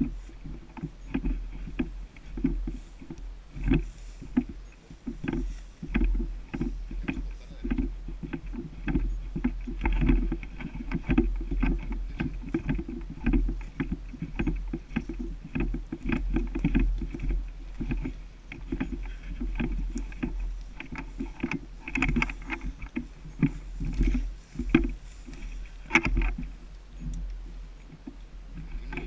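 Rustling and irregular knocks of a person moving on foot through woodland, over a steady low rumble of wind on the microphone.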